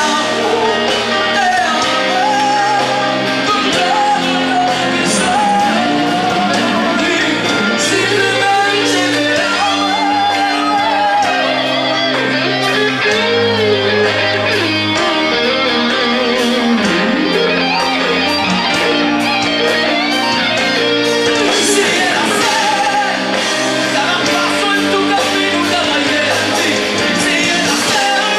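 Hard rock band playing live: electric guitars, bass and drums, with a male lead singer.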